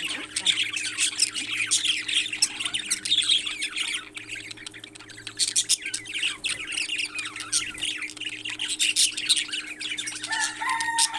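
Parrots squawking and chattering in a dense, rapid stream of calls that thins out briefly about halfway, over a steady low hum.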